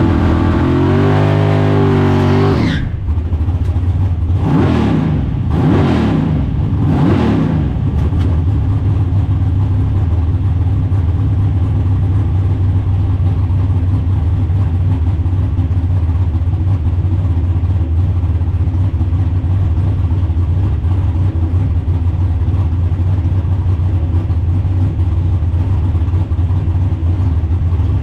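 Drag car's engine heard from inside the car: the pitch climbs over the first couple of seconds, then three quick revs rise and fall, and it settles into a steady low drone for the rest.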